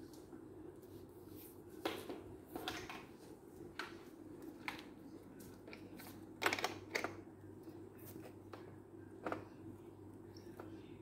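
Plastic toy truck clicking and knocking against a tile floor as a small child handles it, in irregular taps with the loudest pair about six and a half seconds in, over a steady low hum.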